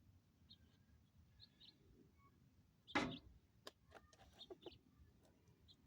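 Faint, short bird chirps in the background, with one sharp knock about halfway through followed by a run of small clicks and crackles.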